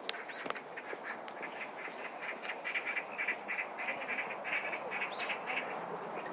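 Birds calling outdoors: a quick series of short, harsh notes, repeating in a rapid run through the middle, over a steady rustle of wind.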